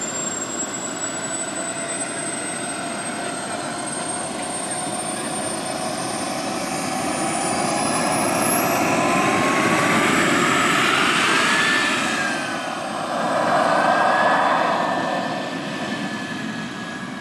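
Small gas turbine of a radio-controlled model jet whining, its pitch climbing steadily as it is throttled up. It grows louder partway through, with a lower whine that rises, peaks, dips and swells again before easing off near the end.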